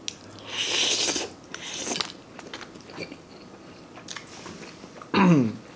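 A person eating a forkful of wide rice noodles: a noisy mouthful about half a second in, then chewing with small wet mouth clicks. Near the end comes a short hum of enjoyment that falls in pitch.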